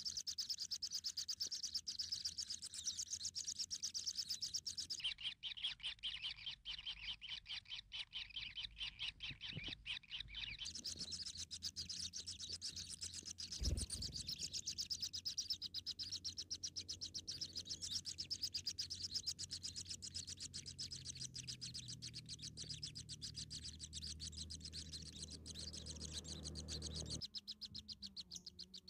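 Nestling birds begging: rapid, continuous high-pitched chirping that runs on with little break. A single thump comes about 14 seconds in.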